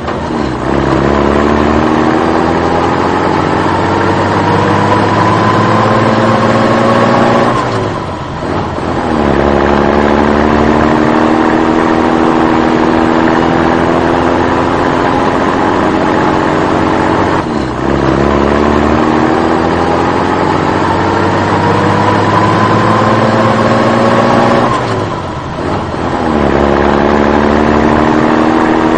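Engine of a motor vehicle accelerating through its gears. The pitch climbs slowly for about eight seconds, drops sharply as it changes gear, and climbs again, with three such drops.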